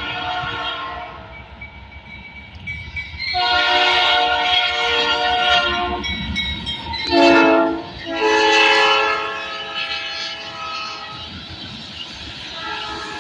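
Norfolk Southern diesel locomotive's multi-chime air horn sounding the grade-crossing pattern of long, long, short, long blasts. The short blast is the loudest. The passing train rumbles underneath, and another blast starts near the end.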